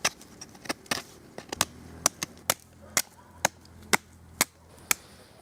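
Knife blade shaving thin curls off a piece of wood to make kindling: a series of sharp scraping snaps, about two strokes a second.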